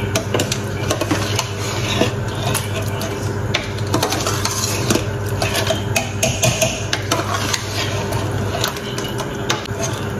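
A metal spoon stirring chicken and masala in a stainless steel pot, scraping and clinking against the pot's sides and bottom again and again as the spices are mixed in.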